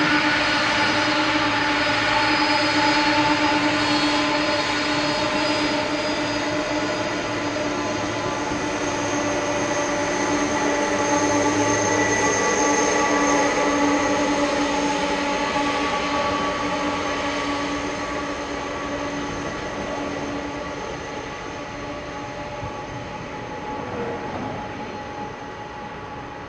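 Four turbofan engines of a taxiing Boeing 747-400 freighter running at taxi power: a steady jet whine of several held tones over a rushing hiss. It fades gradually over the last ten seconds as the jet moves away.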